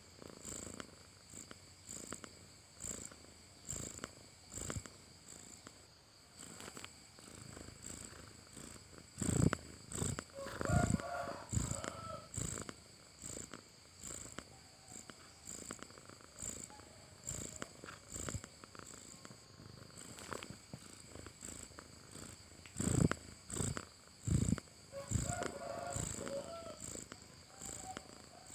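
Cat snoring in its sleep: soft breaths repeating about once a second. Two spells of louder breaths, about a third of the way in and again near the end, carry a faint whistling tone.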